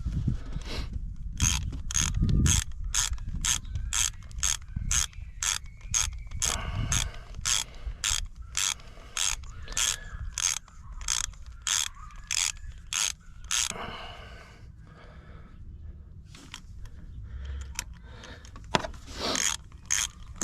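Hand ratchet wrench clicking in steady strokes, about two or three clicks a second, as a bolt is run down on the engine. The clicking stops for a few seconds, then a few more clicks come near the end.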